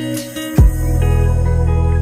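Instrumental background music with plucked guitar over a held bass note, and a low beat about half a second in.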